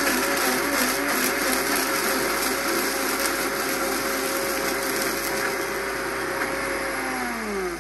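High-speed blender running, pureeing soaked sea moss with its soaking water into a mix that is still too chunky. Near the end it is switched off and its whine falls in pitch as the motor spins down.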